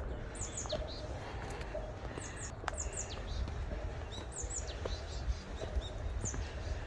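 Small songbirds chirping in short, high, quickly falling notes, a few at a time and scattered throughout, over a steady low rumble.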